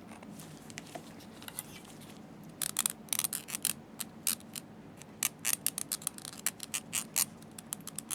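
Irregular run of short, sharp clicks and taps from small parts and tools being handled on a bench, beginning a few seconds in and going on several times a second.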